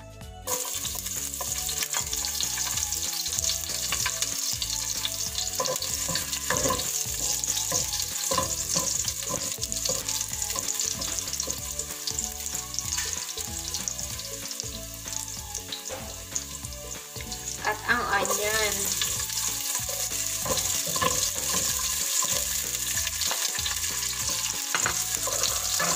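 Chopped garlic, then chopped onion, sizzling in hot cooking oil in a nonstick pot while a wooden spoon stirs it. The sizzle starts just after the garlic goes in and grows louder about two-thirds of the way through.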